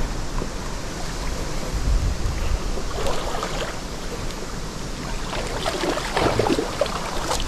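River water splashing and sloshing at the bank, with a couple of louder splashes about three and six seconds in, over wind rumbling on the microphone.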